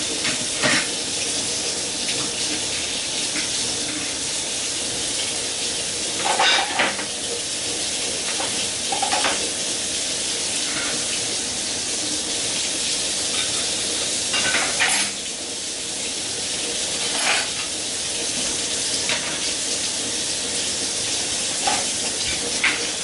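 Water running steadily from a kitchen tap into the sink, with a few brief clinks and clatters of dishes being handled.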